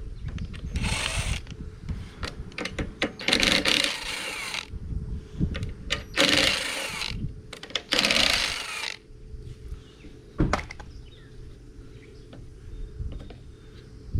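Short bursts of a power tool running, five in all, each lasting about a second. Clicks and knocks of metal parts being handled fall between the bursts and carry on through the quieter last few seconds.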